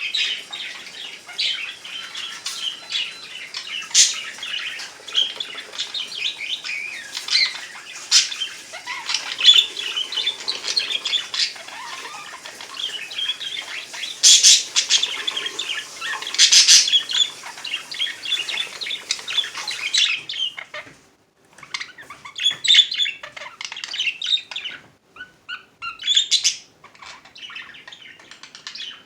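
Pet budgerigars chattering and chirping: a dense run of warbling with sharp, louder chirps, thinning after about twenty seconds into scattered calls with short pauses.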